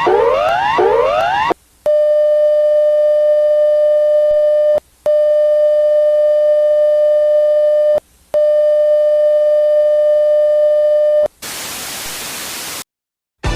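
Electronic emergency alert tones. Repeated rising sweeps, about two a second, give way to three long steady beeps of about three seconds each, separated by short gaps. A burst of static follows near the end.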